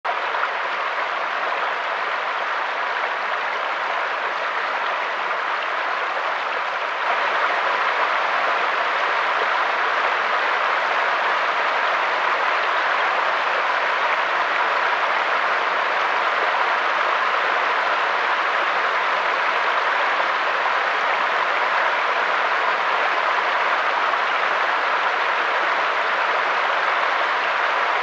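Mountain stream flowing over rocks: a steady, even rush of water that gets a little louder about a quarter of the way in.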